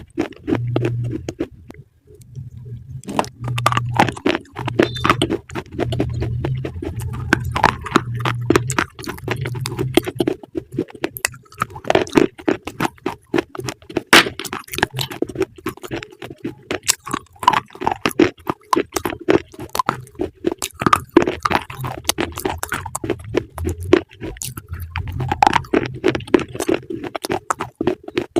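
Close-up crunching and chewing of crisp food, a dense run of crackly bites with a brief pause about two seconds in. A low hum comes and goes under it during the first ten seconds and again near the end.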